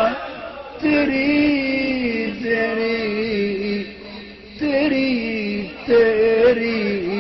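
A man singing an Urdu naat in long, drawn-out melismatic phrases with short breaks between them.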